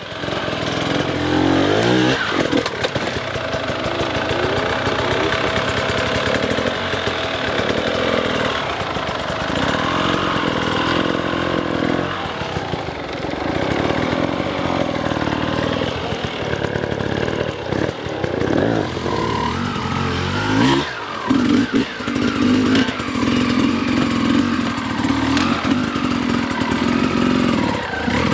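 Hard enduro dirt bike engines revving up and down under load on steep, rough trail sections, with sharp rises in engine pitch near the start and again about two-thirds of the way through.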